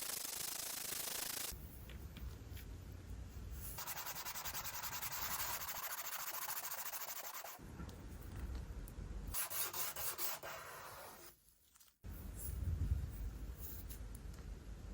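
A lure blank of hardened, compressed cardboard being sanded: stretches of dry rubbing strokes that start and stop abruptly, with a brief near-silent gap about eleven seconds in.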